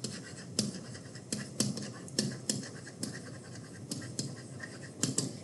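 Stylus tapping and scratching on a tablet screen during handwriting: a string of irregular sharp taps, two or three a second, with light scratching between them.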